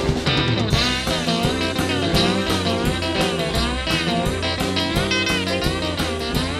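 Instrumental break in a boogie-woogie rock song: a lead guitar plays notes that bend up and down over bass and a steady drum beat.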